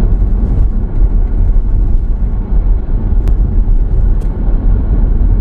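Steady low rumble of road and engine noise inside a moving Toyota Corolla Cross's cabin, with a faint click about three seconds in and another a second later.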